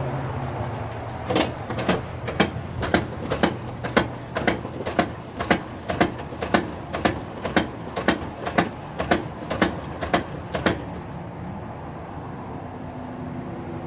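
Kenmore Elite HE5 washer knocking sharply and evenly, about two knocks a second over a steady hum; the knocking stops about 11 seconds in and the hum goes on. This is the weird sound that began after the washer threw an F70 error code.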